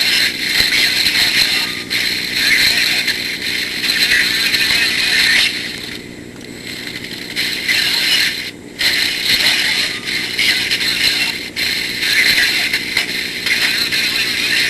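A cheap sound module plays a recorded mechanical tank sound effect through its small speaker. The sound is a loud, tinny rattling clatter in several long stretches, with short breaks about 2, 6, 8.5 and 11.5 seconds in.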